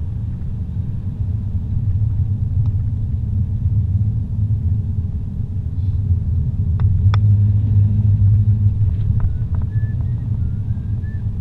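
Car cabin noise while driving: a steady low rumble of engine and tyres on the road, swelling a little about seven seconds in, with a couple of faint sharp clicks.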